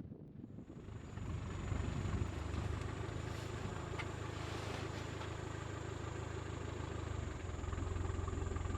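A vehicle engine running steadily at low revs. It grows louder about a second in, then holds.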